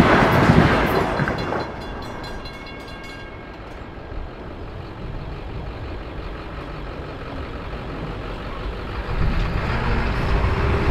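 Long Island Rail Road electric train passing over a grade crossing, loud for the first second and a half and then quickly fading away. Quieter traffic noise follows and builds again near the end as cars start over the crossing.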